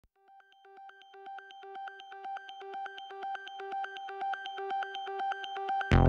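Synthesizer music intro: one note pulsing in quick, even beeps, fading in and growing steadily louder. A full, loud synth chord comes in at the very end.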